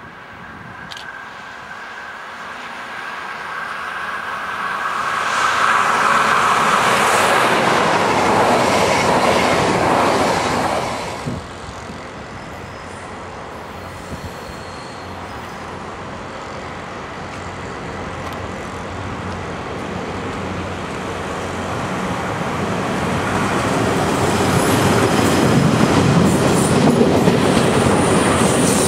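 A locomotive-hauled train approaches and passes, its noise building to a peak and then cutting off abruptly about 11 seconds in. A second train then comes up and passes close by near the end, with loud wheel and rail noise and rhythmic clicking over the rail joints.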